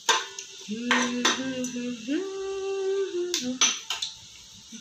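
A metal spoon stirring in an aluminium pot of oil and whole spices, clinking sharply against the pot several times. Between the clinks a sustained pitched tone, rising in a step about halfway through, lasts about three seconds.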